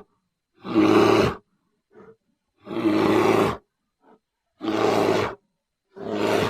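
Brown bear roaring: four short, deep roars, each under a second long and about a second apart, with dead silence between them and two brief faint calls in the gaps.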